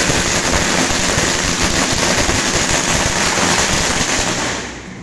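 A string of firecrackers going off on the ground in a dense, rapid crackle of pops, dying away about four and a half seconds in.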